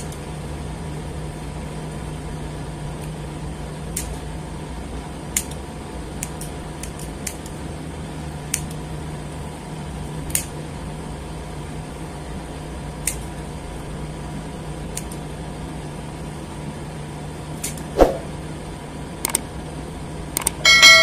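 Scissors snipping through fishing-net twine: a sharp single snip every second or few, the loudest about 18 seconds in, over a steady low hum. A short chime rings at the very end.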